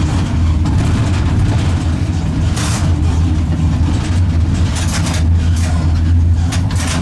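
EL2 electric locomotive heard from its cab while moving: a steady low drone with rumble and rattle from the running gear. A few short hissing bursts come in the second half.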